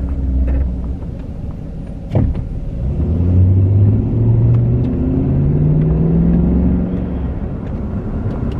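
Old GMC pickup truck's engine heard from inside the cab while driving, a low rumble whose pitch climbs in steps as it accelerates and then eases off. A single sharp knock comes about two seconds in.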